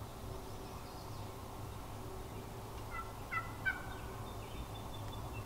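Wild turkey hen yelping: a quick series of about three short yelp notes about three seconds in.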